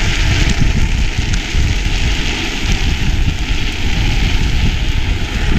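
Wind buffeting the action-camera microphone with a steady rumble, over the hiss of drift-trike wheels with hard plastic sleeves rolling and sliding on asphalt at speed.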